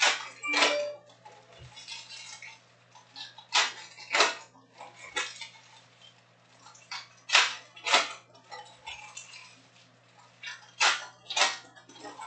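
A stack of glossy Topps Chrome trading cards handled and flipped through by hand, with sharp card snaps and slaps coming mostly in pairs about half a second apart, four times, and soft rustling between.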